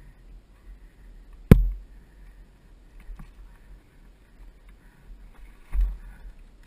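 Two knocks on a helmet-mounted camera over a low rumble: a sharp, loud crack about a second and a half in, and a duller thump near the end.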